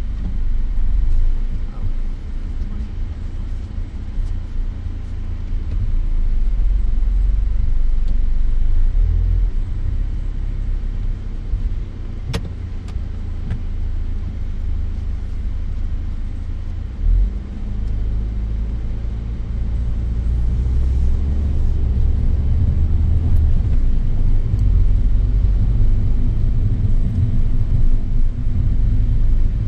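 Car engine and road noise heard from inside the cabin while driving: a steady low rumble, with a single sharp click about twelve seconds in.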